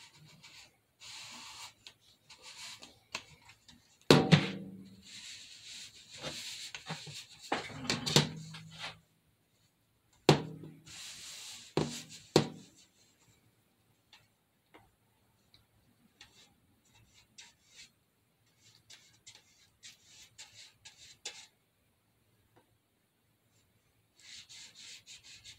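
Crafting handling sounds at a tabletop: rubbing and scraping as a painted metal can and a round craft board are handled, with four sharp knocks in the first half as they are set down. Near the end, a paintbrush scrubs glue onto the board.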